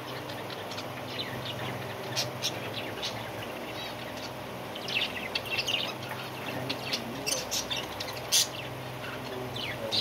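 A flock of budgerigars chirping and chattering: many short, sharp chirps, coming thickest about halfway through, with one loud chirp near the end. A steady low hum runs underneath.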